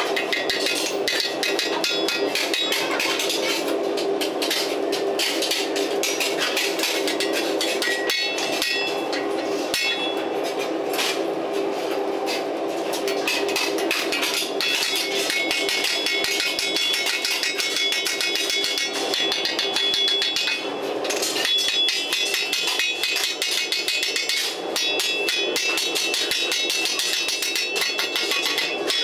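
Hand hammer striking rapidly and steadily on a steel shovel blade over an iron anvil block, driving nails to fix the blade and grip to the wooden shaft. The blows ring with a metallic tone.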